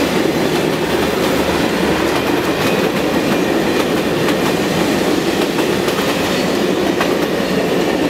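Union Pacific passenger cars at the tail of a steam excursion train rolling past on the track, a steady rumble with the wheels clicking now and then over the rails.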